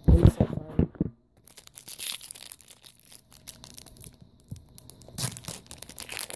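Pokémon booster pack foil wrapper and trading cards being handled: papery crinkling and rustling with quick tearing-like crackles. It opens with a few loud knocks of handling in the first second, and a louder flurry comes about five seconds in.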